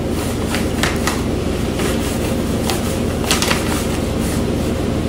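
Steady low mechanical hum, with a few faint crinkling rustles of a plastic snack bag as a cat tugs at it.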